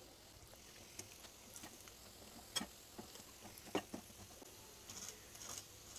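Coated bread rolls frying in hot oil in a nonstick pan: faint, scattered crackles and pops, with two sharper clicks a little over a second apart in the middle.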